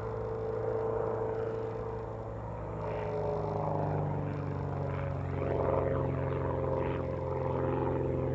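Slingsby T67M Firefly's single piston engine and propeller droning steadily during an aerobatic display, the pitch shifting after a couple of seconds as the aircraft manoeuvres.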